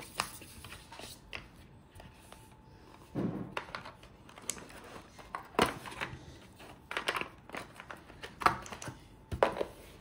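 Handling noise from a smartwatch's cardboard box and paper insert being unpacked: irregular rustling and scraping with small knocks of the box and watch.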